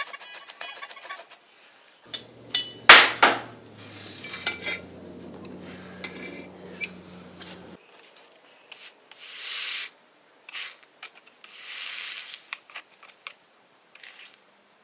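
Metal objects being handled: a sharp metallic clank, then light clinks and rubbing, and later two short hissing scrapes.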